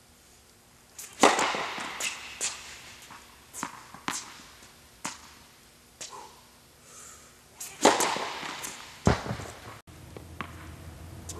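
Tennis serves in an echoing indoor tennis hall: two loud strings-on-ball strikes, about six and a half seconds apart, each ringing on in the hall, with lighter ball bounces and knocks between them. A steady low hum comes in near the end.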